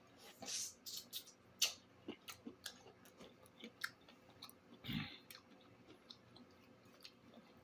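A person chewing food close to the microphone, with irregular wet mouth smacks and clicks and one louder smack about five seconds in; the chewing thins out toward the end.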